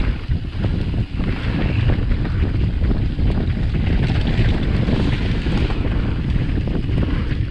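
Wind buffeting the microphone over the rumble and rattle of a mountain bike riding a dirt trail, with many small knocks throughout.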